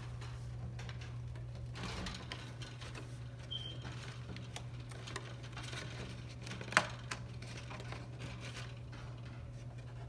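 Faint rustling and light clicks of a cardboard bird carrier being handled inside a wire cage, over a steady low hum, with one sharp click about seven seconds in.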